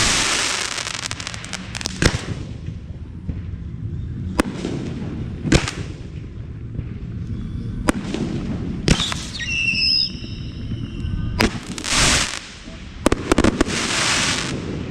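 Aerial fireworks display: sharp shell bursts every second or two over a low rolling rumble, with swells of crackling hiss from crackle effects. About ten seconds in, a short high whistle sounds.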